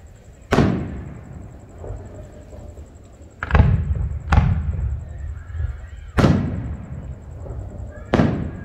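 Aerial fireworks shells bursting overhead: five sharp booms at uneven intervals, each trailing off in a rumbling echo.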